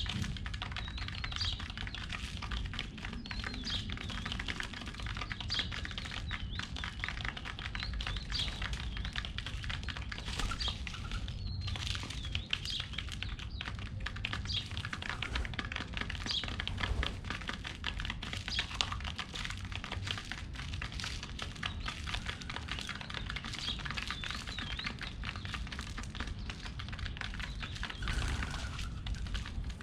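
Rapid, dense tapping of pigeons pecking seeds off the ground, with short bird chirps throughout.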